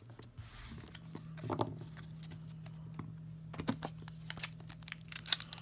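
Pokémon trading cards being handled and laid down on a playmat: scattered light clicks and taps, coming thicker near the end, over a faint steady hum.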